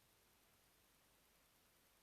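Near silence: faint steady hiss of background noise.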